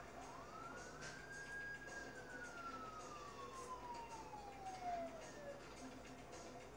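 A faint siren wail: one tone rising quickly, holding briefly, then falling slowly over about five seconds, with a few faint clicks.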